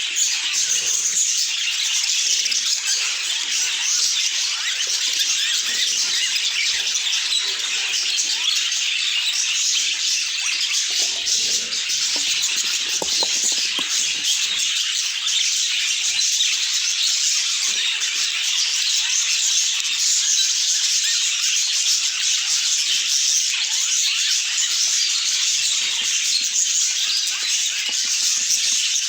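A group of budgerigars chattering and chirping together in a dense, continuous high-pitched warble.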